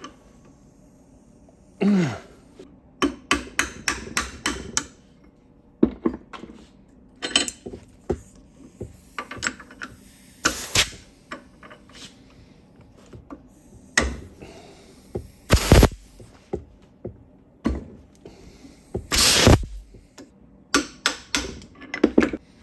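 Short blasts of compressed air from a blow gun fired into the bleeder port of a Triumph TR6 hydraulic cylinder, used to force out a piston seized by rust. The three blasts come between many sharp clicks and metal knocks from tools against the cylinder in the vise.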